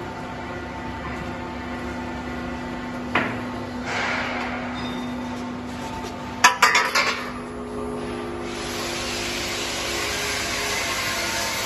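Steady hum of a pipe rounding machine, with a knock about three seconds in and a scrape shortly after. Around the middle the coiled metal tube clatters and rings several times as it is set down on the concrete floor, and a steady hiss comes in near the end.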